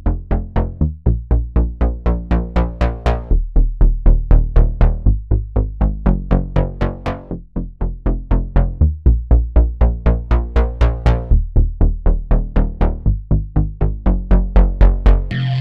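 Synth bass preset from the Serum software synthesizer playing a fast repeating line of short, punchy notes, about four a second, stepping between a few low pitches.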